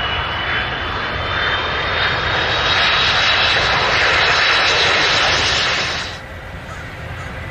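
Airplane engines running loud with a high whine that rises slightly in pitch. The sound cuts off suddenly about six seconds in, leaving a quieter, duller engine rumble.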